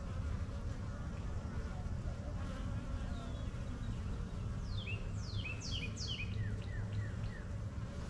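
Honey bee colony buzzing steadily as a frame covered in bees is lifted out of the open hive. About five seconds in, a short run of high, falling chirps sounds over the hum.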